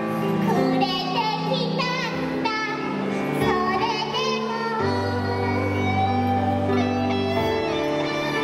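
Live band playing a pop song with a high lead vocal singing over it; a bass line comes in strongly about five seconds in.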